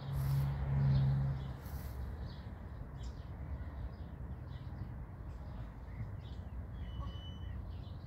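Small birds chirping on and off, with a brief whistled note about seven seconds in, over a steady low outdoor rumble that is louder in the first second or so.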